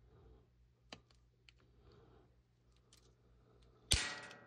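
Light clicks of a plastic model-kit chimney piece being trimmed and handled, then one sharp plastic snap near the end that rings briefly and fades.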